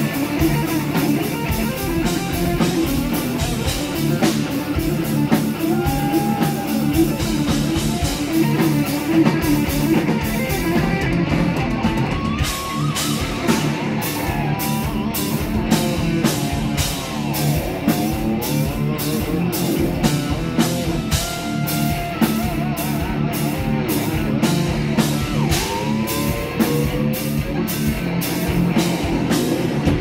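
Live heavy metal band playing loud: an electric lead guitar with notes that bend up and down, over bass and a drum kit hitting in a steady, even beat.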